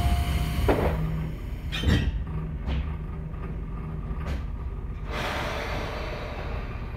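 Sliding doors of a Tobu 10000 series electric train closing, with several knocks and thumps. Then compressed air starts hissing about five seconds in.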